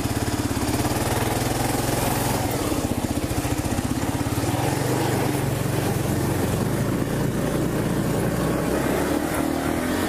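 Kawasaki KLR650's single-cylinder engine ticking over, then opening up just after the start and pulling steadily as the bike wades through a creek and climbs onto a dirt track, with a constant wash of water and wind noise under it.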